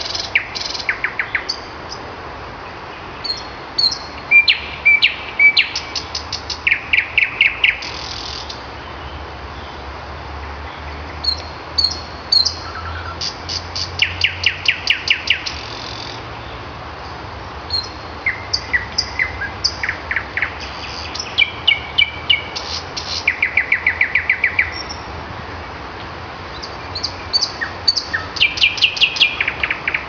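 Nightingale singing: phrases of rapidly repeated sharp notes and short whistles, each phrase a second or two long, separated by brief pauses.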